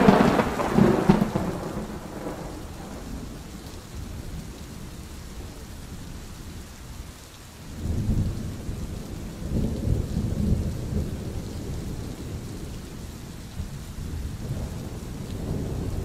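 Steady rain with thunder: a loud rumble fading away over the first couple of seconds, then another low rumble rolling in about eight seconds in and dying down.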